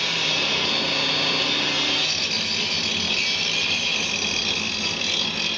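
Electric angle grinder grinding on a steel gate bar: a steady, high grinding hiss and whine from the disc on the metal.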